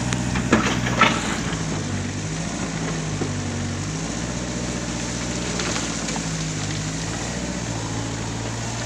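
Backhoe's diesel engine running, its pitch stepping up and down as it works the digging arm, with two sharp knocks about half a second and a second in.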